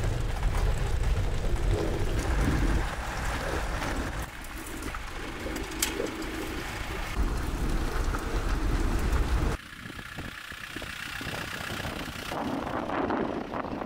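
Land Rover Defender's engine and road noise heard from inside the cabin while driving on a gravel road, a steady low rumble. About ten seconds in it cuts abruptly to a much quieter outdoor background.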